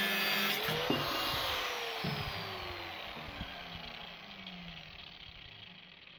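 Angle grinder finishing a cut through steel angle iron, its whine rising briefly and then falling slowly as it is switched off and spins down, fading out. Two short knocks come about one and two seconds in.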